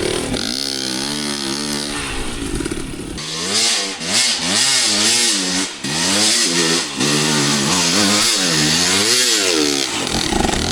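Two-stroke dirt bike engine running fairly steadily for a few seconds, then revved up and down over and over, about once a second.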